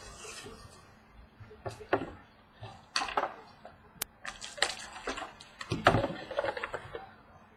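Trading cards and a pack being handled: scattered rustles, slides and light taps, with a sharp click about four seconds in.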